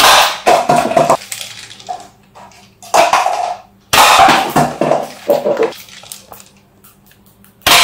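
Toy AWM sniper rifle being cocked by hand and fired: a series of sharp plastic clacks and snaps, a second or more apart, as its plastic ball pellets hit and knock over stacked paper cups.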